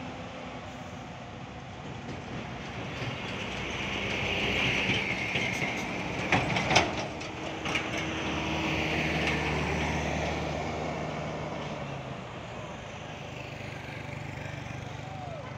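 Heavy trucks passing on the road. A hiss of tyres and engine swells as an empty dump truck goes by, with a cluster of sharp clanks about six to seven seconds in, and a motorcycle passes. Afterwards a truck's diesel engine keeps up a low, steady hum.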